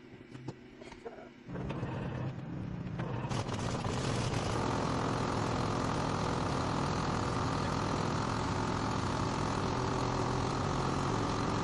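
Cat D7E bulldozer's diesel engine running steadily. It comes in abruptly about a second and a half in after a quiet stretch of faint clicks, then builds and holds at a steady level.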